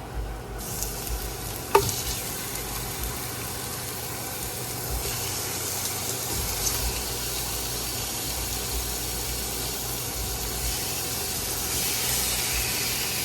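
Pieces of pork sizzling as they fry in a pan alongside sautéed onions and garlic. The sizzle starts about half a second in and grows a little louder near the end. There is one sharp metallic clank near two seconds in.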